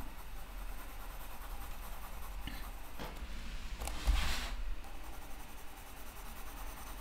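Coloured pencil scratching softly on paper in small circular strokes. About four seconds in comes a louder rustle as the sketchbook page is turned on the table.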